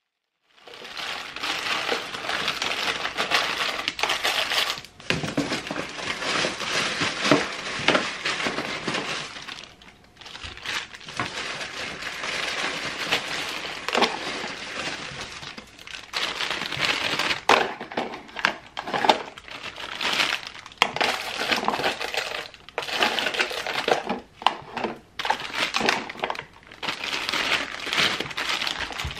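Clear plastic zip bags crinkling and rustling as they are handled and opened, with many small clicks and clinks from the metal rhinestone charms inside and the plastic organizer drawers; it starts about half a second in.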